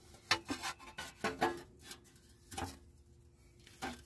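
A few short, scattered metal clinks and knocks as parts are handled at the Jeep Cherokee's crankshaft flange, each ringing briefly.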